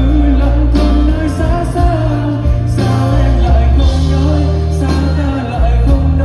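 Vietnamese pop song playing, with a singing voice over a heavy bass line.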